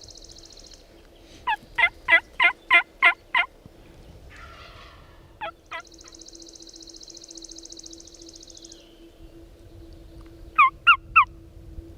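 Turkey yelping: a run of seven sharp yelps at about three a second, two more a few seconds later, and three near the end. A high buzzing trill sounds twice behind them.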